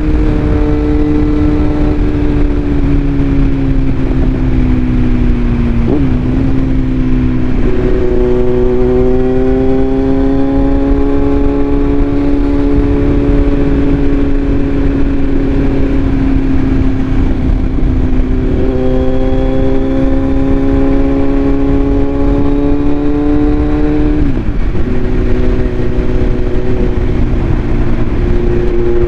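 Kawasaki Z900's inline-four engine running with its bread box pre-silencer removed, a loud, fairly steady exhaust note that drifts slowly in pitch. About six seconds in and again near the end the pitch drops suddenly before settling at a new steady note.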